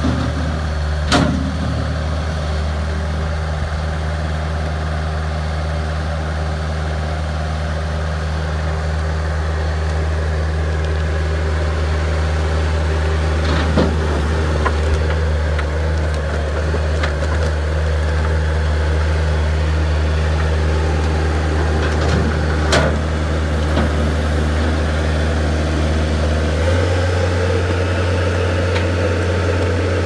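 Bobcat 773 skid steer loader's diesel engine running steadily, its note stepping up slightly near the end, with a few sharp clanks from the machine.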